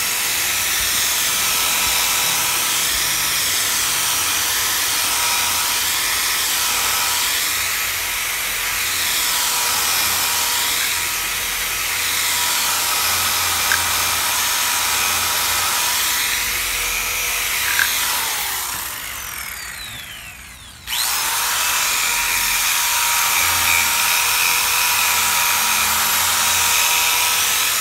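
Corded electric drill running steadily, spinning a buffing brush over a waxed pine desktop to burnish the wax. About two-thirds of the way through, the motor winds down in pitch, then the running sound returns abruptly at full speed.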